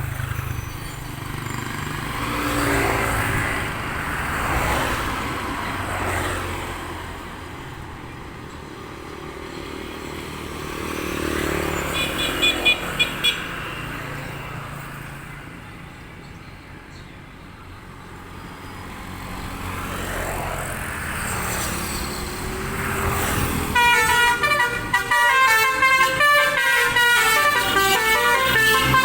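Road traffic passing in slow swells. A bus's 'telolet' Basuri multi-tone musical horn gives a short burst of quick notes about halfway through. For the last five seconds or so it plays a loud, fast tune of rapidly changing notes.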